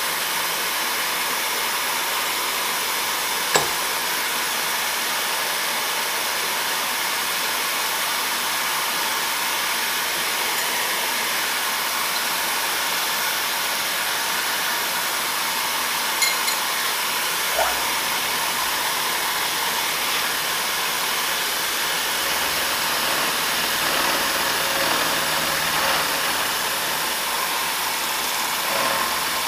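Steady machine-shop hiss from running equipment. A single sharp metal click comes a few seconds in, and a few lighter clicks follow past the middle as the workpiece is indexed and locked down with a wrench.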